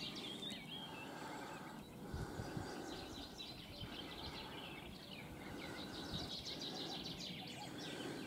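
Faint birdsong: several small birds chirping in short phrases over a quiet, steady outdoor background.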